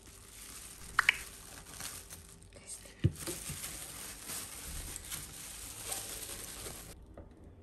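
Crinkling and rustling as the pressed block of cooked rice is handled and portioned, with one sharp knock about three seconds in. The rustling stops near the end.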